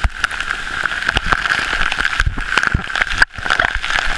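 Steady loud rush of a flash-flood waterfall and its spray, with frequent sharp knocks on the microphone. The sound briefly drops out a little past three seconds in.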